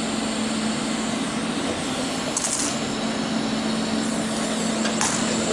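MIG welding arc crackling and hissing as a tack weld is laid on thin steel plate, over a steady low hum.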